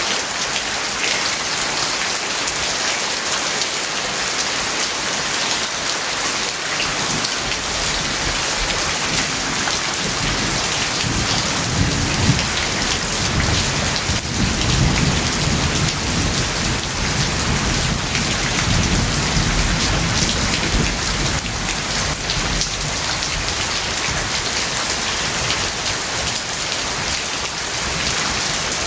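Steady rain falling and pattering on surfaces. A low rumble of thunder comes in about ten seconds in and fades after about twenty.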